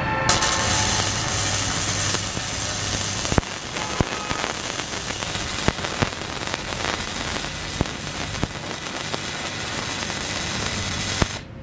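Gasless (flux-core) MIG welding arc from an ESAB HandyArc MIG 200i at its 4 mm setting, filling a gapped butt joint between steel plates: a steady, loud crackle with scattered sharp pops. It strikes just after the start, is brightest for the first three seconds, and cuts off suddenly just before the end when the trigger is released.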